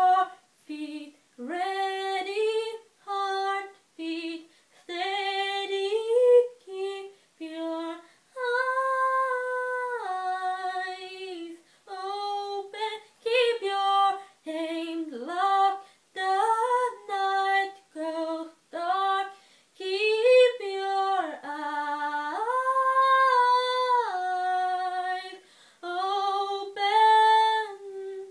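A woman singing unaccompanied: phrases of held and sliding notes with no instruments behind her. The voice cuts off abruptly at the end.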